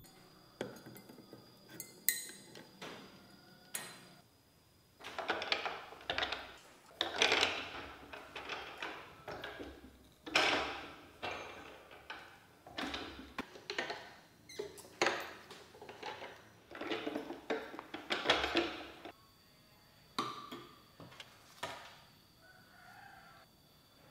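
Hand-cranked jewellery rolling mill being turned, its metal gears and rollers clanking in a long run of strokes about once a second, with a few lighter clicks before it starts.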